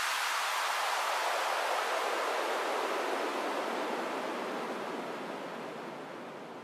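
A hiss of electronic white noise sweeping downward in pitch and slowly fading out. It is the sweep effect that closes one track of an EDM mix before the next one starts.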